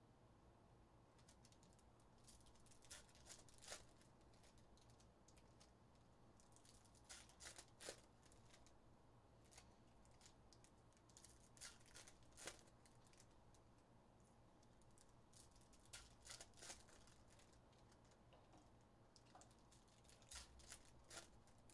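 Trading cards and foil pack wrappers handled on a table: faint short clusters of crisp clicks and crinkles, about every four to five seconds, as packs are opened and cards stacked.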